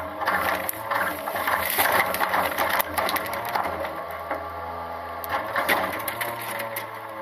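Hydraulic cart tipper on a small side-loader garbage truck dumping a plastic trash cart into the hopper, with the cart and lift rattling and knocking as the trash drops out. The truck's engine and hydraulics run steadily under it while the empty cart is lowered, with another short clatter near the end.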